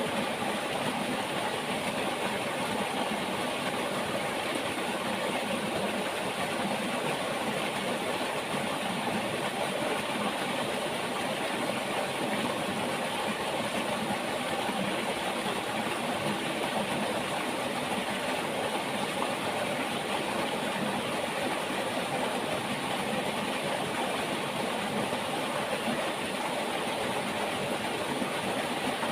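A flowing river: a steady, even rush of water.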